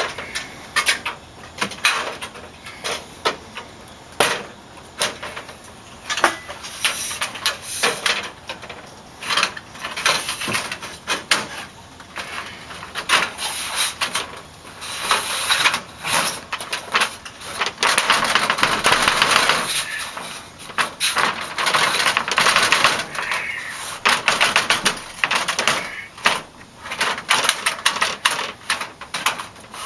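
Irregular taps, knocks and scraping of hand work on a wooden door and its hardware, with a longer spell of scraping or rasping about halfway through.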